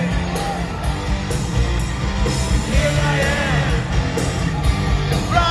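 Hard rock band playing live through an arena PA, recorded from within the crowd, with voices singing and yelling over the music.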